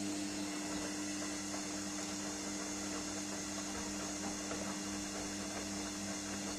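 Gorenje front-loading washing machine's motor driving the drum round fast during a 95° wash: a steady hum over a rushing noise of water and wet laundry in the drum.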